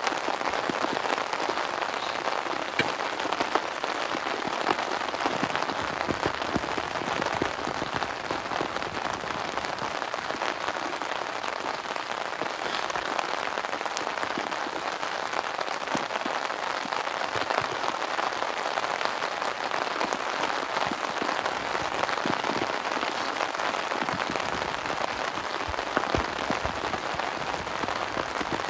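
Steady rain falling on a tarp shelter and tent, with scattered single drops ticking close by.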